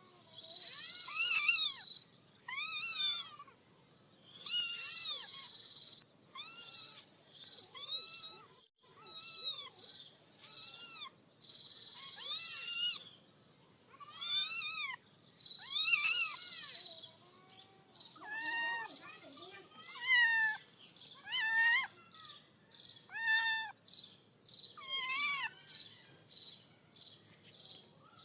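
A cat meowing over and over, about once a second, each meow rising and then falling in pitch. A high steady tone comes and goes behind the meows.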